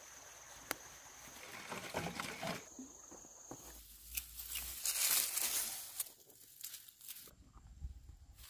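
Rustling and crinkling with scattered sharp clicks, loudest about five seconds in; a thin steady high tone runs through the first few seconds and stops.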